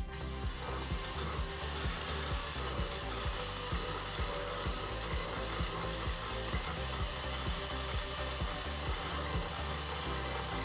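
Electric hand mixer switched on and running steadily, its twin metal beaters whipping cream in a glass bowl. Background music with a steady beat plays underneath.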